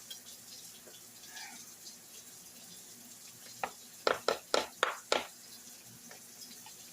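Kitchen clatter: a quick run of about six sharp knocks or clinks, roughly four a second, over a faint steady hiss.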